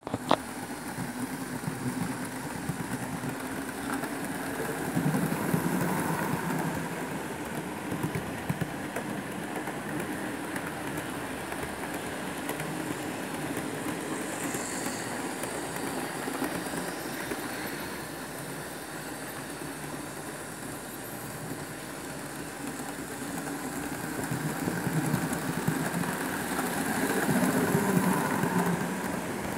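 Model Thameslink Class 377 electric train running along the track: a steady motor whirr and wheel rumble that swells twice as the train passes close, with occasional sharp clicks.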